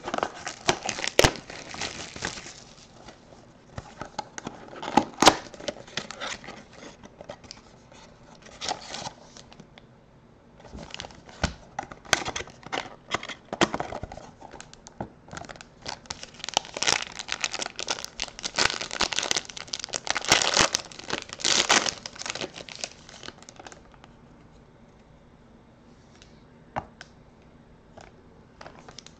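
Packaging of a trading-card box being opened by hand: crinkling and tearing in irregular bursts as the inner box is slid out of its sleeve and the cards are taken out, quieter near the end.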